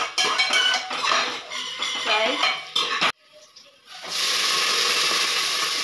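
A spoon stirs fried onions in a pressure cooker, clinking and scraping against the pot. After a short break about three seconds in, a steady, loud sizzle of frying takes over.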